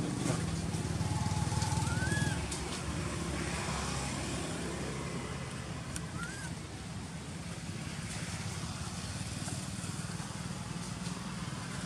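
A motor engine running steadily with a low rumble, louder for the first two seconds or so. Two short chirps sound over it, the first about two seconds in and the second about six seconds in.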